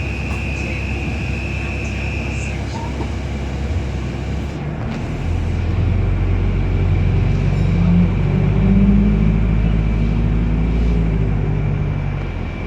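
Inside a New Routemaster hybrid double-decker bus: a steady high whistling tone for the first couple of seconds, then from about five seconds in the bus's diesel engine runs up louder, its pitch rising and falling before easing off near the end.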